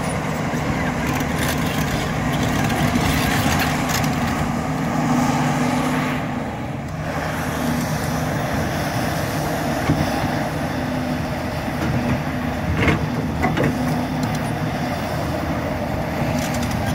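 Cat 352 crawler excavator's diesel engine running steadily under load as the machine tracks and swings on the slope, easing off briefly about six seconds in. A few sharp metallic clanks come about ten seconds in and again around thirteen to fourteen seconds in.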